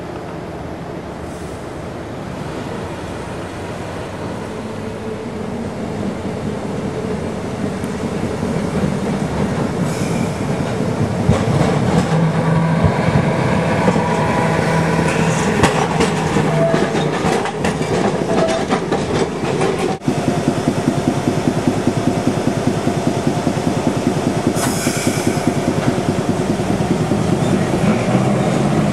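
Streetcar running on street track, growing louder for about the first twelve seconds as it approaches, its wheels clicking over the rails with a low hum. In the second half comes a fast, even clatter.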